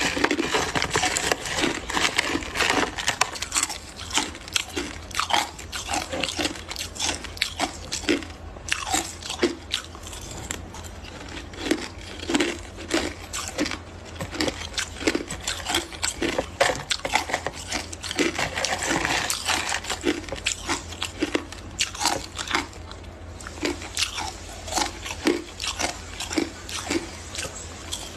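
A person biting and chewing hard crushed ice: a steady run of sharp crunches and cracks, about one or two bites a second.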